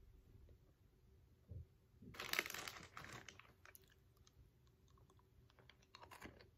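A person eating crunchy salty snacks. About two seconds in there is a loud crackling burst lasting about a second, then a scatter of soft, crisp chewing crunches.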